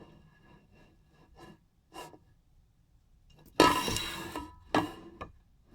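Handling of stainless steel water bottles: a few faint taps, then a louder scraping rub with a faint metallic ring about three and a half seconds in, followed by two sharper knocks.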